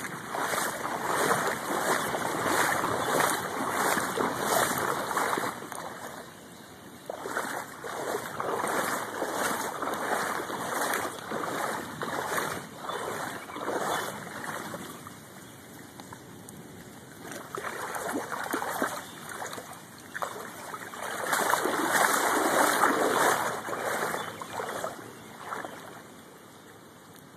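Floodwater rushing and splashing across a flooded residential street, swelling and easing in several waves, loudest for a few seconds near the end.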